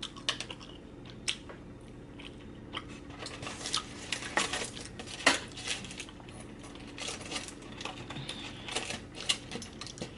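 A fork clicking and scraping against a dish in irregular taps, with one louder clink about halfway through.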